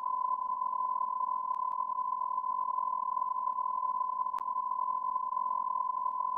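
A steady, unbroken electronic beep tone, a plain high-pitched sine tone held without a break, with one sharp click about four seconds in.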